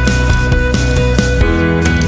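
Background music with guitar and a steady beat, changing chord about a second and a half in.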